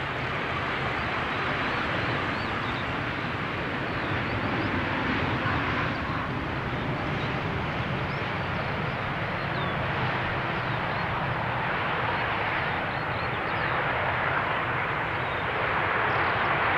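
Jet engines of a Saudia Boeing 787 Dreamliner in a steady rush as the airliner touches down and rolls out along the runway, growing a little louder near the end as it passes closest.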